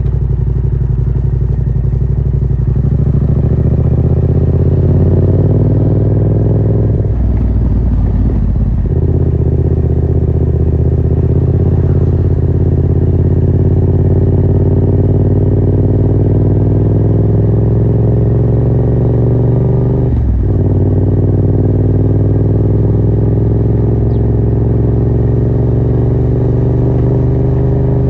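Yamaha MT-07's parallel-twin engine running through a Yoshimura R77 exhaust with the dB killer removed, under way. Its note rises slowly through the gears, with short breaks about 8 seconds in and about 20 seconds in, as at upshifts.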